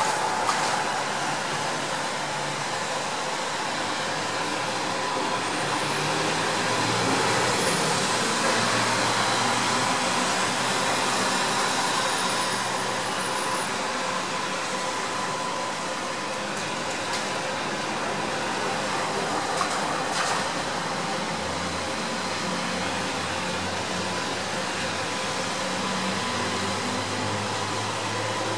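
A steady rushing noise.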